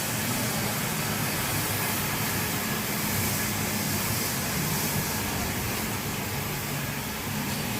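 F50 wet floor scrubber running: a steady low motor hum under a constant hiss from its brush and suction.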